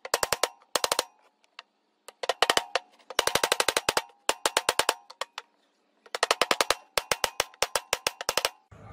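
Small hammer tapping oil seals into aluminium gearbox bearing cover plates: quick runs of about eight to ten light strikes a second, each with a short metallic ring, broken by brief pauses.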